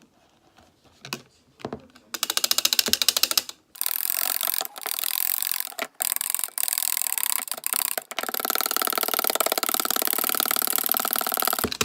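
Whipping cream by hand: a whisk beaten fast against a bowl, making rapid, even clicking that starts about two seconds in and runs on with a few short pauses.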